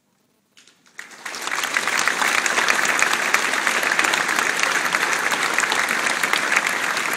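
A large audience applauding. The clapping starts out of near silence a little under a second in, swells to full within about a second, and then holds steady.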